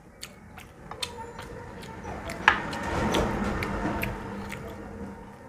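Mouth sounds of a person eating rice and rohu fish curry by hand: chewing, with fingers mixing rice on the plate and small clicks. There is a sharp click about two and a half seconds in, then the chewing grows louder for a couple of seconds.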